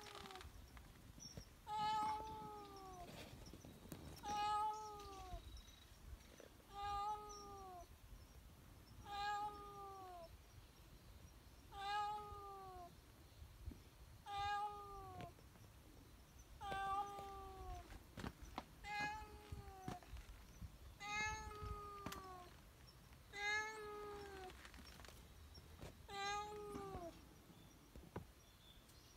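Cat meowing over and over, about eleven short arched meows, one roughly every two and a half seconds.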